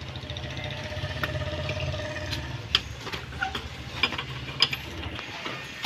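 Wrench ratcheting and metal clicking as wheel nuts are undone on a car wheel, with three sharper clinks. Under it runs a steady low hum that cuts off about five seconds in.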